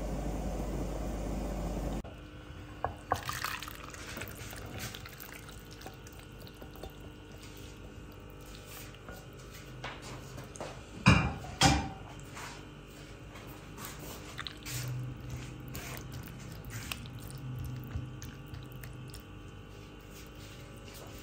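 Creamy sauce bubbling quietly in a covered pan for about two seconds, cut off suddenly. Then faint clicks and taps of kitchen handling, with two sharp knocks a little after ten seconds in.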